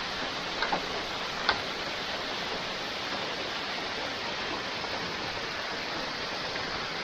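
Waterfall rushing steadily, with a few faint ticks in the first couple of seconds.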